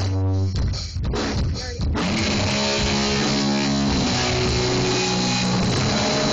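Live rock band: a few drum hits, then about two seconds in the band comes in with electric guitar over the drums.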